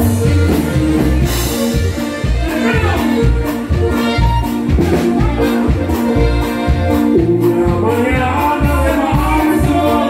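Live norteño band music: a steady bass and drum beat under sustained melody instruments, with a singer's voice over it.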